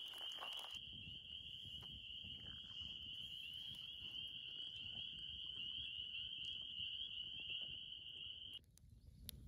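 A night chorus of calling animals trilling steadily on one high pitch, cut off suddenly near the end.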